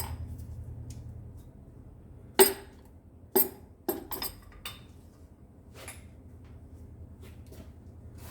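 Metal knocks and clinks of tools and parts while a Toyota 1JZ engine's piston and conrod are worked out of the upside-down block: one sharp knock about two and a half seconds in, then several lighter clinks. A low hum fades away over the first two seconds.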